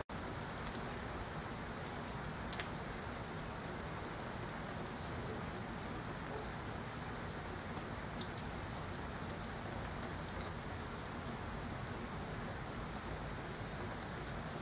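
Steady rain falling, with scattered drops ticking sharply nearby.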